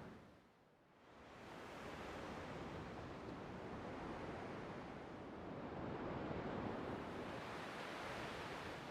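Steady wash of recorded water sounds, dipping briefly about half a second in, then swelling back and holding even.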